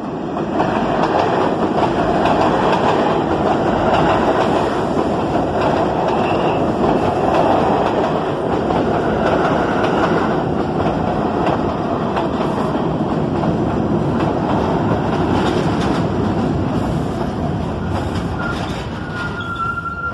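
R46 subway train pulling into an elevated station: wheels rumbling and clattering on the rails as the cars run past, then a steady high squeal near the end as it brakes to a stop.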